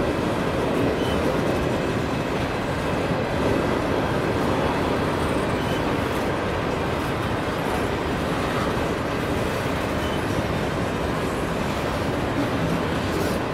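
Empty covered hopper cars of a grain train rolling past on steel rails, a steady, unbroken noise of wheels on track.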